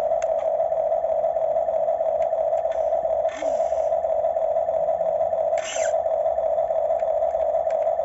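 Radio-controlled model excavator working its boom and bucket: a steady drone from its electric drive, broken twice, about three and five and a half seconds in, by a short higher whirr.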